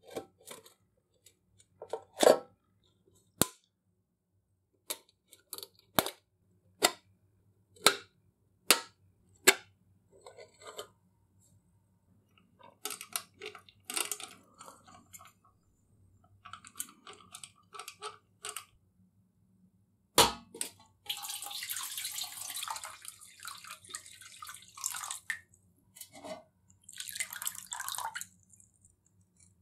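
Hand disassembly of an old pressed-steel kitchen scale: a run of sharp metallic clicks and snaps from pliers and parts, light rattling, and one loud knock. In the second half, splashing and running water as the scale's mechanism is handled in a bowl of water.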